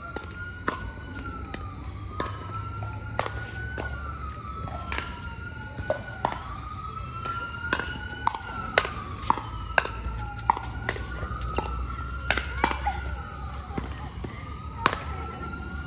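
Sharp pops of pickleball paddles hitting the plastic ball during rallies, quickest in a run around the middle. Behind them an emergency-vehicle siren wails, its pitch rising and falling every couple of seconds.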